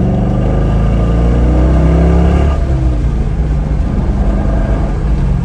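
C5 Corvette's V8 accelerating hard, its pitch climbing, then dropping at a gear change about two and a half seconds in and running on under load. Mixed in is a rough metallic rattle from the rear, made by the exhaust pipes dragging on the rear axles because an exhaust hanger has come loose.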